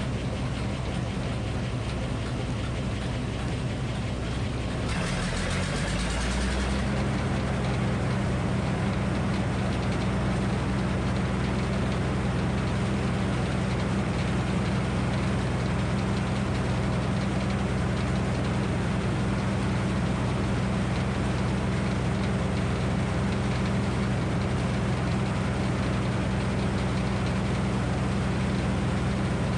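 Minneapolis Moline HEB 605 cubic-inch engine running steadily. About five seconds in, its note shifts with a short burst of hiss, then it settles to an even run with no sawing heard.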